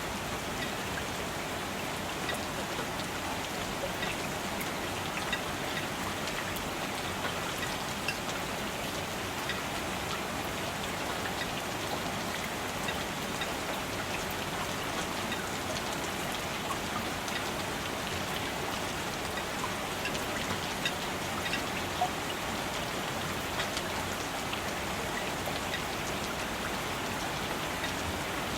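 Steady rain falling, an even hiss with many scattered louder drops ticking on a nearby surface.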